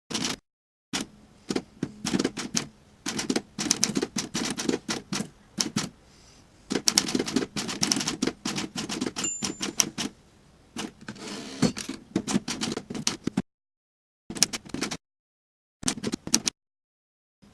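Imperial 70 typewriter being typed on slowly with one finger: keys strike in uneven runs of sharp clacks, broken by short pauses.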